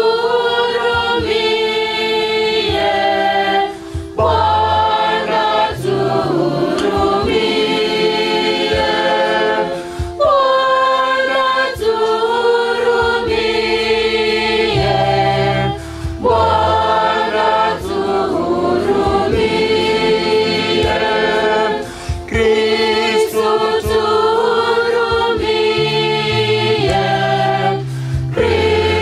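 Choir singing a hymn in short phrases, with a low accompaniment underneath.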